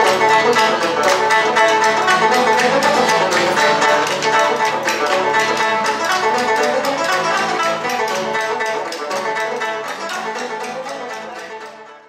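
Acoustic guitar and banjo playing a tune together, fading out over the last few seconds.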